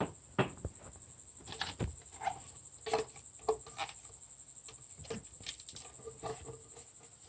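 Light, irregular clicks and knocks of a plastic engine oil filler cap being unscrewed and handled, about a dozen in all.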